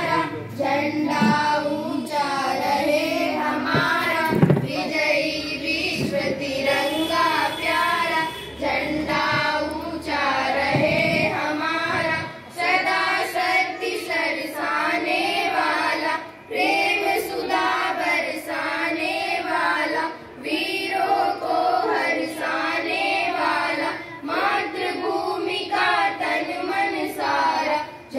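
A group of schoolchildren singing together, in phrases broken by short pauses for breath about every four seconds.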